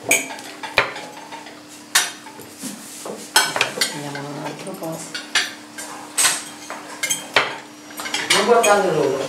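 Kitchen clatter: a knife knocking on a wooden cutting board and dishes and cutlery clinking, a string of separate sharp knocks and clinks.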